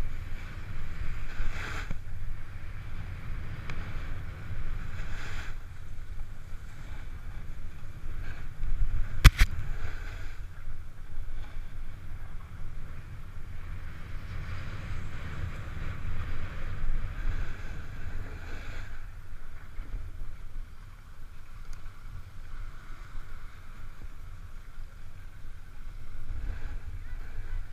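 Snowboard sliding down a slope, its base and edges hissing and scraping over the snow in swells that come and go, under a low rumble of wind buffeting the GoPro Hero 3's microphone. One sharp knock about nine seconds in.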